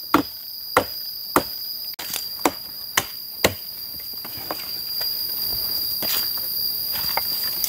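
Chopping blows into hard, dry deadwood, about one every half-second for the first three and a half seconds, then a few lighter knocks. Insects buzz steadily at a high pitch underneath.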